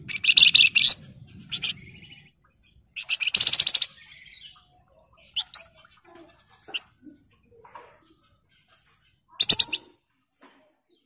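Flamboyan (Javan fulvetta) songbird singing: three loud bursts of rapid, dense, high chattering trills, with softer short whistled notes between them.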